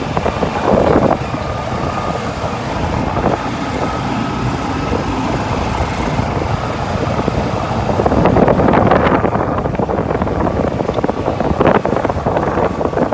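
Golf cart driving along a road: steady rumble of the cart's running and its tyres on the pavement.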